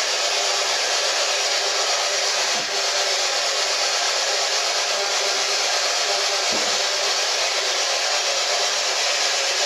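PSB11 spirit box scanning radio bands: a steady, loud hiss of static, broken only by a couple of faint, short blips.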